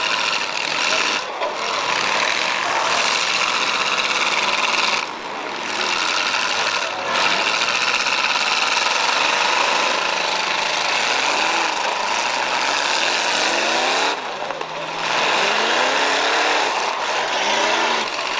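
Several demolition derby car engines revving hard at once, a loud, dense noise. In the second half one engine after another rises in pitch as it revs, and the loudness dips briefly twice.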